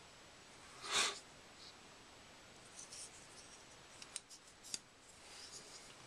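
Handling noise of open folding knives turned and moved in the hands: a brief rubbing rustle about a second in, then a few light clicks between four and five seconds in.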